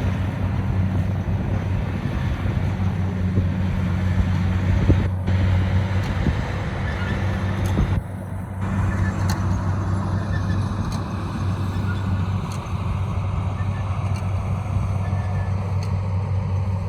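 Rice combine harvester's engine running at a steady speed with a constant low hum.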